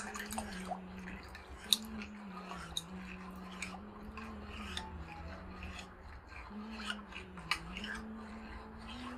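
Steel spoon stirring falooda noodles and seeds into thick chilled custard in a steel bowl: soft wet stirring with scattered light clicks and scrapes of spoon against the metal bowl. A faint low tone that steps up and down in pitch runs underneath.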